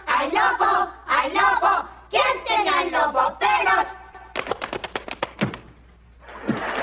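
Voices singing a children's song in wavering, sing-song tones, then a quick run of about a dozen sharp claps, a short lull, and applause starting near the end.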